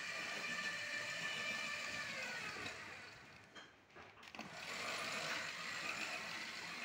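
Electric motor of a remote-controlled spray-hose reel whining steadily as it winds the hose onto the drum. Past the two-second mark the whine falls in pitch and dies away, then the motor starts up again about a second later.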